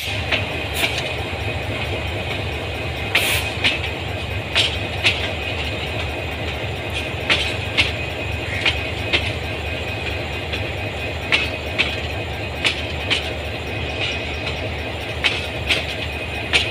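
Passenger train rolling slowly over jointed track: a steady rumble with sharp wheel clicks, mostly in close pairs, every couple of seconds as the wheels cross the rail joints.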